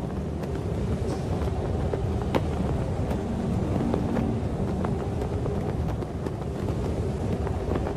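Wind of a snowstorm blowing steadily, deep and rough, with faint held tones a few seconds in.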